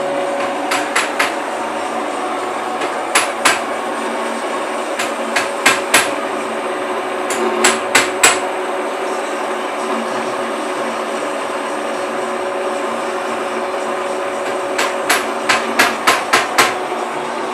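TV-4 "Shkolnik" bench lathe running and turning a metal bar, a steady mechanical hum with faint steady tones. Several short clusters of sharp metallic clicks stand out over it.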